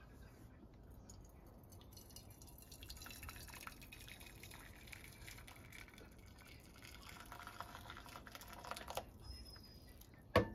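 Hot water poured from an electric kettle into a frying pan, a faint pour and trickle lasting several seconds. Near the end a single sharp clink as a glass bowl is set down in the pan.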